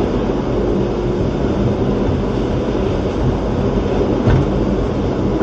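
St. Louis Gateway Arch tram capsule riding up its track inside the arch leg: a steady, even mechanical rumble, with a single knock about four seconds in.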